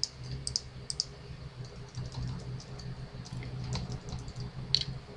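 Irregular clicks and taps of a computer keyboard and mouse during editing work on a computer, over a low steady hum.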